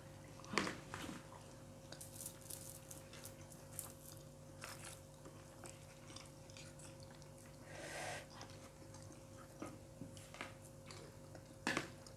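Quiet eating: chewing and mouth sounds with light clicks and scrapes of metal spoons on plastic plates of fried rice, a few sharper taps near the end. A faint steady hum runs underneath.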